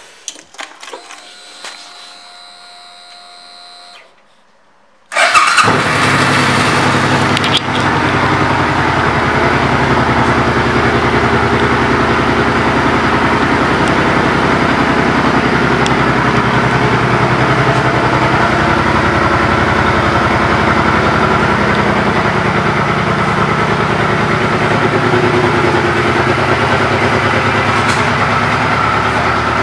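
Suzuki Boulevard C50T's 805 cc V-twin engine starting suddenly about five seconds in, then idling steadily.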